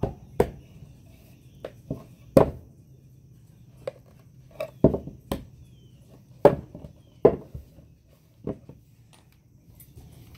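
Wooden boards of a small planter box being handled and fitted together: about a dozen sharp wooden knocks at irregular intervals, with no drill running.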